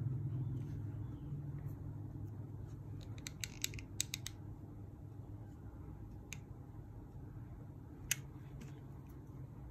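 Small sharp clicks from handling crochet work and tools: a quick run of several clicks about three seconds in, then single clicks twice later, over a steady low hum.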